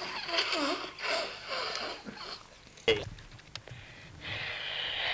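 Short vocal noises and a sharp click, then from about four seconds in the rising rushing noise of a jet aircraft passing over, its tone sweeping as it goes.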